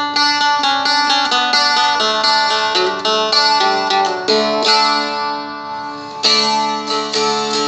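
Seagull Merlin strumstick being strummed and picked, a melody over steady ringing drone strings, with strong fresh strums at the start and about six seconds in.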